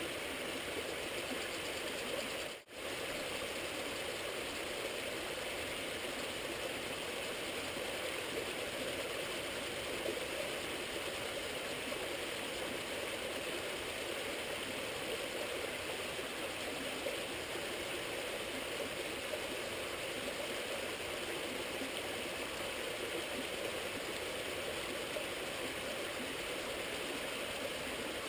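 Steady rushing of flowing stream water, with a brief dropout about two and a half seconds in.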